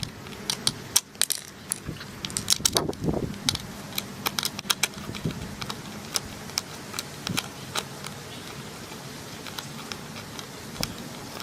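Irregular metal clicks and clinks of a tool working the mounting nuts and bolts loose to take the trucks off a skateboard deck. The clicks come thick and fast in the first few seconds, then more sparsely.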